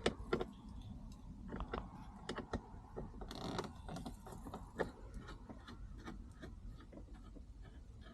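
Hand ratchet clicking in short spells while bolts are loosened, among scattered light clicks and rattles of tools and trim parts, with a brief scrape about three and a half seconds in.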